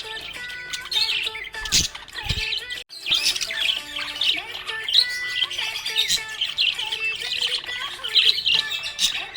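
Budgerigars chirping and squawking in quick, dense chatter, with a brief break about three seconds in.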